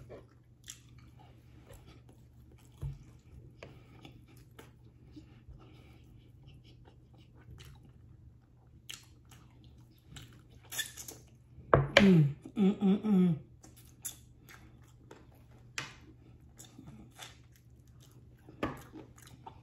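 Close-miked eating sounds: wet chewing and lip smacks, heard as scattered clicks. About twelve seconds in there is a short, loud hummed vocal sound in several pulses, the loudest moment.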